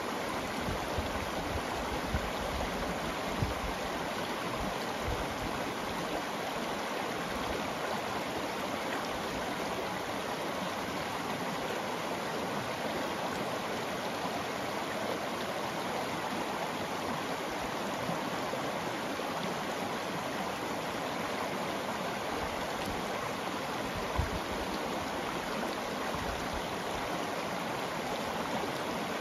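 Shallow river running steadily over a bed of cobbles and small rocks: a continuous rushing babble of water through the riffles. A couple of brief low bumps stand out, about three seconds in and again later.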